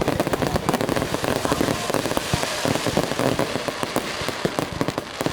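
Fireworks going off in a rapid, continuous string of sharp bangs and crackles, with a hissing crackle thickest in the middle.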